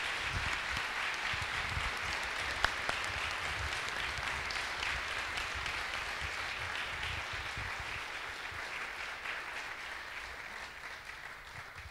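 A large seated audience applauding, the clapping slowly dying away near the end.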